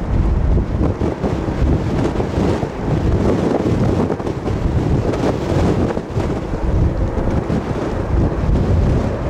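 Strong, gusty wind buffeting the microphone: a loud, low rush that swells and drops with the gusts.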